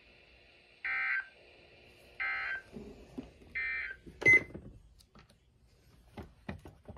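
Weather radio sounding the SAME end-of-message code that closes a flash flood warning: three short, buzzy data bursts about a second and a half apart. A sharp click follows about four seconds in, then a few faint crackles.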